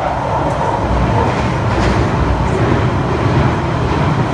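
Loud, steady rumble and roar of a moving vehicle, with strong low-pitched noise and no speech.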